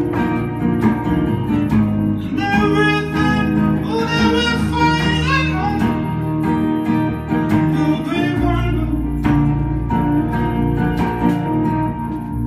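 A song with strummed acoustic guitar and a singing voice, the sung melody most prominent from about two to six seconds in.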